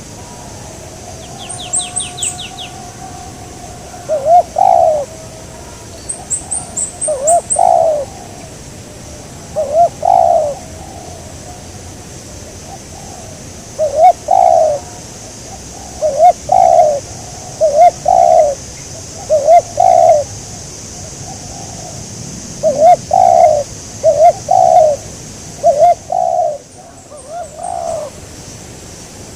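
Spotted dove (tekukur) cooing: a long run of short, low coos, singly and in twos and threes, every one to three seconds. Brief high chirps from a small bird come twice in the first eight seconds.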